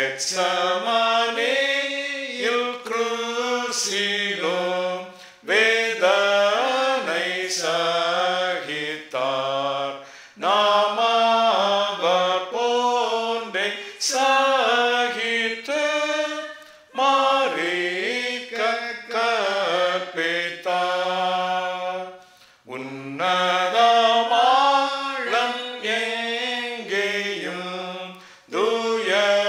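A Tamil hymn being sung, phrase by phrase, with brief breaks between the lines; a new verse begins near the end.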